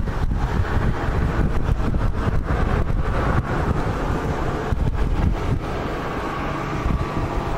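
Wind buffeting the microphone: a steady low rumble broken by frequent short pops.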